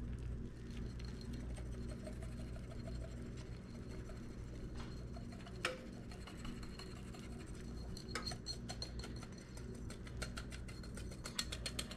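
Wire whisk scraping and tapping against a mixing bowl as batter is scraped out, light clicks that come thick and fast in the last few seconds, over a steady low hum.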